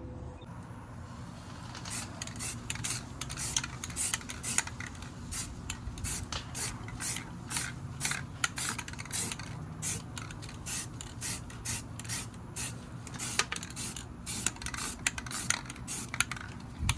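Aerosol spray-paint can hissing in short repeated bursts, about two or three a second, while coating a wheel rim. Wind rumbles on the microphone underneath.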